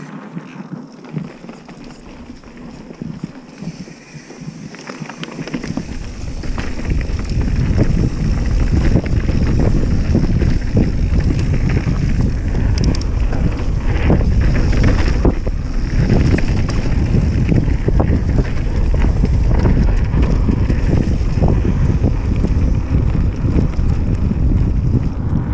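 Wind buffeting the microphone of a mountain-bike action camera on a fast dirt-trail descent, with many short knocks and rattles from the bike over the rough ground. The wind rumble grows much louder about six seconds in.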